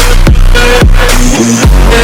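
Electronic dance music with a heavy bass line and a kick drum at a steady beat, about two hits a second.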